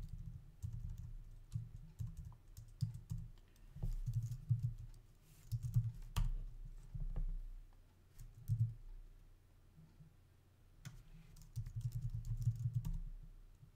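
Typing on a computer keyboard: irregular bursts of a few keystrokes at a time, with short pauses between them.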